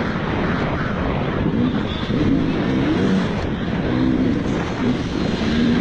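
Motocross bike engine heard on board, revving up and dropping back repeatedly, about once a second, as the throttle is worked at low speed.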